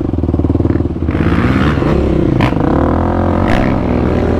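2020 Yamaha YFZ450R's single-cylinder four-stroke engine, fitted with a Rossier R5 full exhaust, revving up and down as the quad is ridden. Two sharp clacks come through around the middle.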